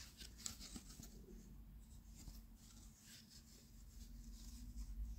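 Faint scratchy rustles and small taps of cotton-gloved hands turning and closing a small cardboard box, over a faint low hum.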